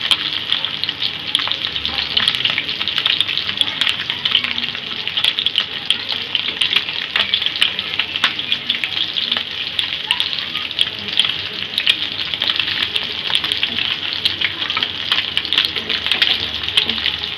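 Masala-coated silver Indian anchovies shallow-frying in hot oil in a pan, second side down: a steady sizzle with constant small crackling pops.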